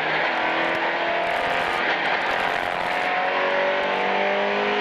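Ford Escort Mk2 rally car's Millington four-cylinder engine heard from inside the cabin, accelerating along a straight, its note climbing steadily in the second half, over tyre and road noise.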